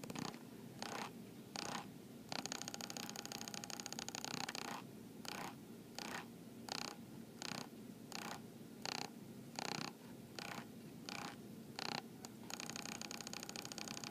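Tekin ROC412 brushless RC motor running unloaded on the bench with a high-pitched whine, held steady for a couple of seconds, then pulsed in short bursts about one and a half times a second, then held steady again near the end. The run is a test for a motor knock, which the owner says is now more of a vibration.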